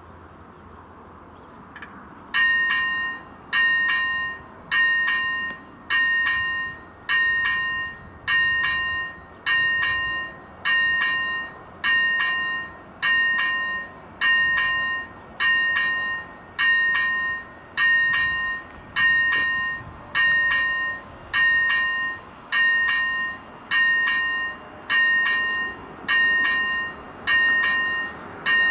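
Electronic warning bell of a Czech AŽD 71 level-crossing signal, switching on about two seconds in as the red lights start flashing. It dings steadily, a little under once a second, warning that a train is approaching.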